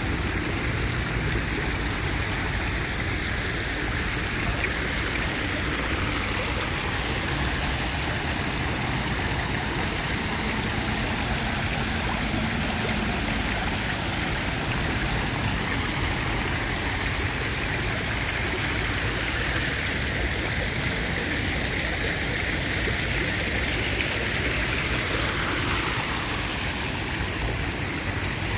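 Tiered stone fountain's jets splashing into their basin: a steady rushing of falling water, with city traffic running underneath.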